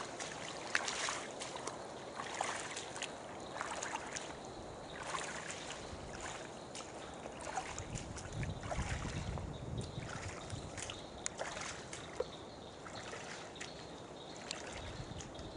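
Footsteps splashing and rustling through shallow water and wet undergrowth, with irregular swishes and snaps of brush, and a brief low rumble about halfway through.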